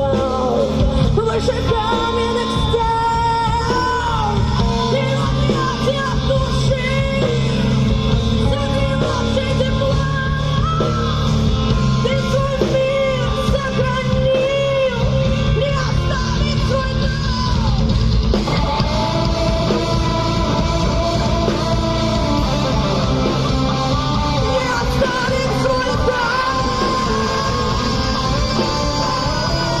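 Live rock band playing loud and steady, with electric guitars, bass and drums, and a sung melody over them.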